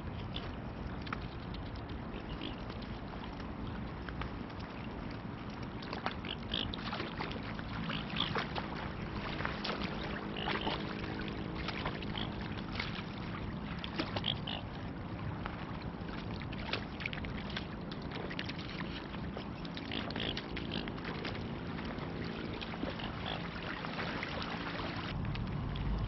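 Mute swans feeding in the shallows at the river's edge: water lapping and splashing, with clusters of small clicks and dabbling from their bills, over a steady wash of wind and water.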